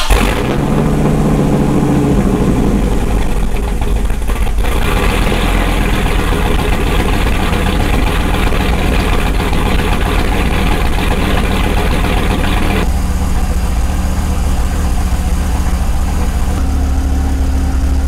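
Dodge Viper's 8.0-litre V10 engine running at idle just after starting, its tone shifting a few times along the way.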